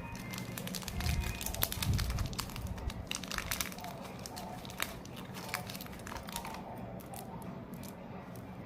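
Cadbury Gems wrapper crinkling and crackling as it is handled, with dense clicks that are busiest in the first few seconds and thin out near the end. A few dull knocks come at about one to two and a half seconds in.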